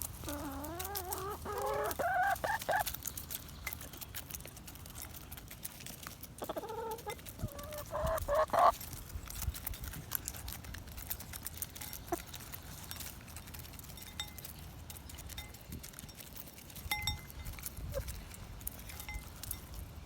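Chickens feeding: two drawn-out, wavering calls of about two and a half seconds each, one at the start and one about six seconds in. Between and after the calls come scattered light clicks of pecking.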